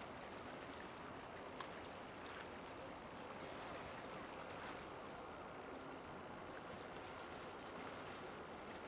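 Faint, steady harbour background noise with no distinct engine or horn tone. There is one sharp click about one and a half seconds in.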